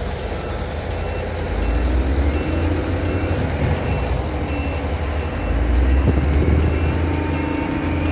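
Excavator diesel engine and hydraulics working the coal-levelling attachment, a low rumble that swells twice under load. Over it an electronic warning beeper sounds short high beeps at a steady pace, about three every two seconds.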